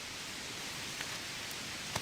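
Steady hiss of rain falling in a forest, with two faint ticks, about a second in and near the end.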